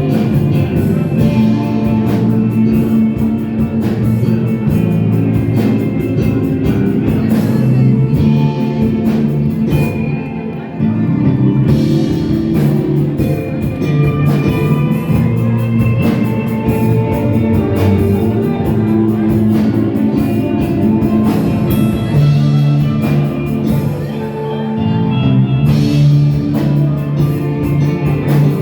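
Live rock band playing a song, with guitar, bass and drums, and some singing.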